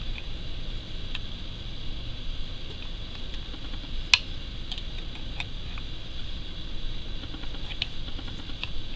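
Small scattered clicks of a metal loom hook catching on the pegs of a knitting loom while purl stitches are worked, with one sharper click about four seconds in, over a steady background hum.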